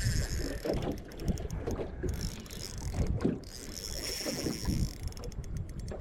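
Fishing reel clicking rapidly as a bass is fought on the line, with wind on the microphone.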